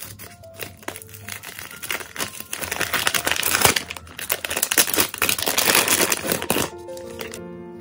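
Plastic courier mailer and a clear plastic bag crinkling as they are handled and opened, loudest from about two seconds in until shortly before the end.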